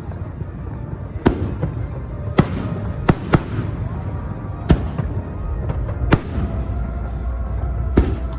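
Fireworks shells bursting overhead: about seven sharp bangs at uneven intervals, two of them in quick succession around three seconds in, over a steady low rumble.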